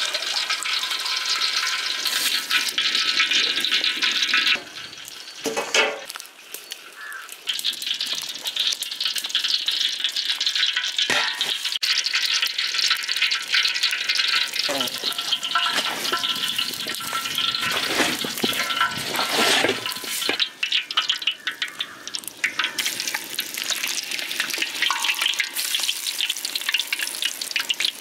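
Bitter gourd pakoda deep-frying in hot oil: a steady crackling sizzle that dips briefly about five to seven seconds in.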